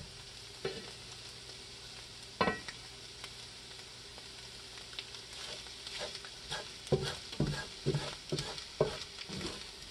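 Scrambled eggs sizzling in hot oil in a cast iron skillet, with a steady hiss throughout. A wooden spatula stirs and scrapes them against the pan, with one sharp knock about two and a half seconds in and a quick run of strokes in the second half.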